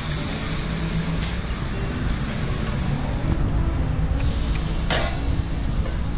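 Coconut-rice batter sizzling in a hot cast-iron khanom krok pan as it is poured in, over a steady rumble of street traffic. The hiss stops suddenly about three seconds in, and a short clatter of a pan lid being handled follows a couple of seconds later.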